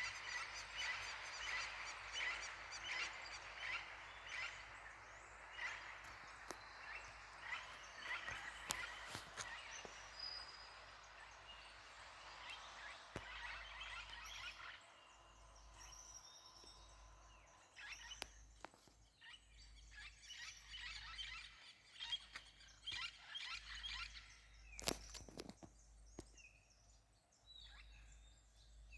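Many songbirds chirping and singing in a morning chorus, dense at first and thinning out after about fifteen seconds. A few sharp clicks stand out, the loudest near the end.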